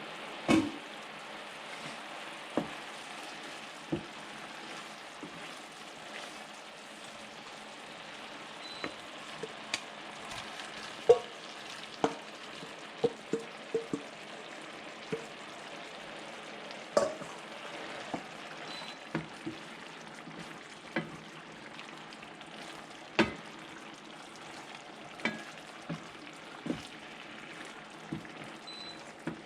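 Squid adobo sizzling steadily in a pan while it is stirred, with about twenty sharp, irregular knocks of the cooking utensil against the pan.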